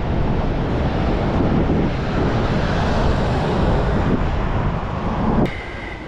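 Strong wind buffeting the microphone, with sea surf behind it; the rush drops off abruptly near the end.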